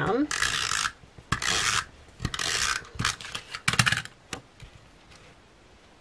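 Adhesive tape runner drawn across the back of a photo print in four short strokes, each a dry hiss, with a few small clicks between them; it stops about four seconds in.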